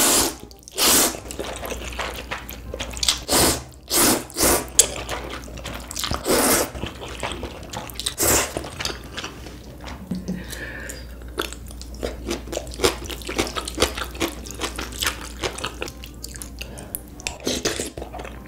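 A person slurping ramen noodles in spicy broth: a run of separate wet slurps in the first several seconds and another near the end, with quieter short mouth sounds in between.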